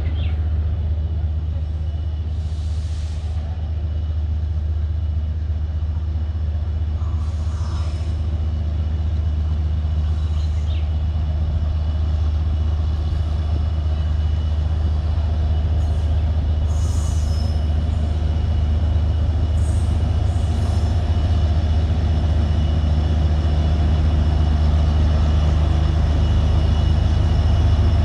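WDP4D diesel locomotive's EMD two-stroke engine approaching with a deep, steady rumble that slowly grows louder as the train draws in, with a few faint short high-pitched squeals over it.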